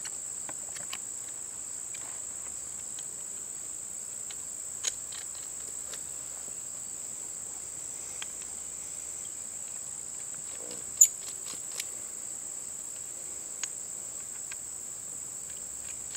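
A steady, high, unbroken insect chorus, cricket-like. Over it come scattered small metallic clicks and taps as steel spikes are screwed into the base of a geophone, with one sharper click about eleven seconds in.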